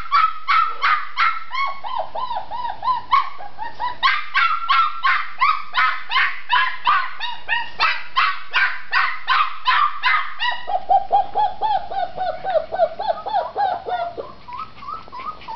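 Red tri-coloured Australian Shepherd puppy yapping non-stop, about four high-pitched yaps a second: a puppy demanding to be let out of her pen. After about ten seconds the yaps turn lower and softer.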